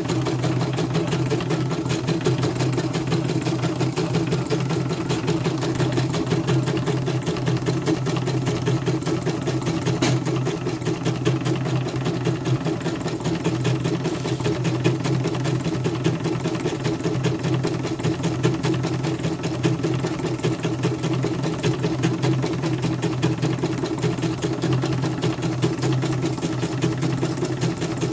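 Elnoss embroidery machine stitching at speed, a steady rapid clatter of the needle bar, with one sharp tick about ten seconds in. It is a test run after its bobbin case, which kept jumping, was adjusted, and it runs without fault.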